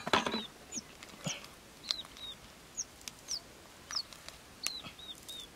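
Small birds chirping again and again with short, high, falling notes. Under them are a few short knocks and scrapes from hands digging in dry, cracked mud, the strongest right at the start.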